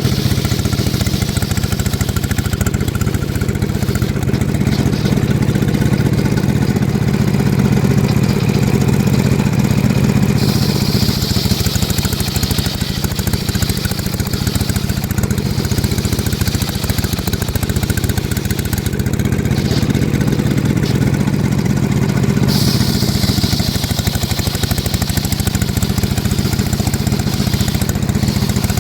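Engine of a homemade circular sawmill running steadily, with a hissing rasp of the blade in wood from about ten seconds in to about nineteen, and again from about twenty-two seconds on, as mahogany is ripped.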